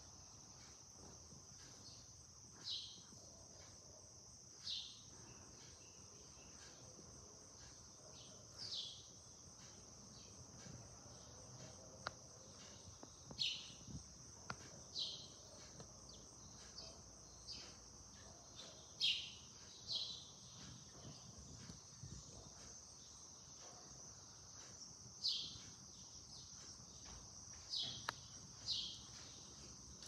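House sparrows chirping: about a dozen short, falling chirps at irregular intervals, over a steady high-pitched insect chorus.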